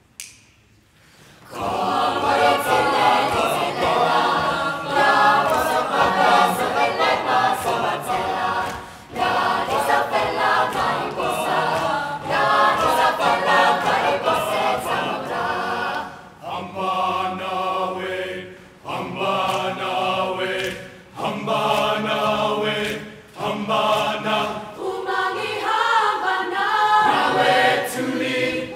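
Large mixed student choir singing in harmony, in rhythmic phrases broken by short pauses; the singing comes in about a second and a half in.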